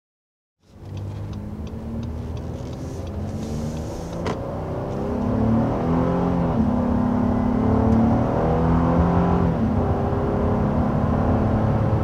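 Honda Ridgeline's 3.5-litre V6 accelerating hard up to 60 mph, starting under a second in. The engine note climbs in pitch, drops back at each automatic upshift, then climbs again, growing louder as speed builds.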